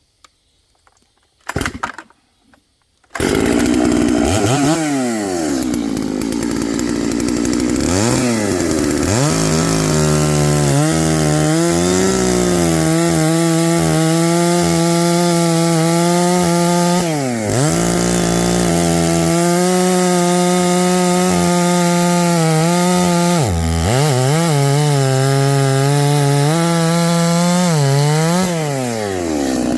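Hanakawa two-stroke chainsaw started and run hard at high revs, after a short noise about two seconds in. The engine holds a high, steady pitch and drops off and climbs back about five times as the throttle is let off and opened again.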